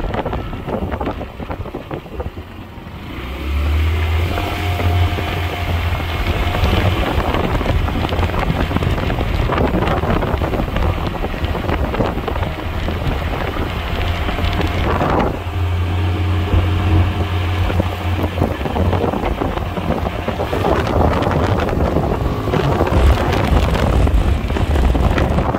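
X-Pro Tahiti 150 scooter's 150cc engine running under way as the scooter speeds up, with wind buffeting the microphone. The engine eases off briefly, then picks up about three seconds in and holds a steady drone.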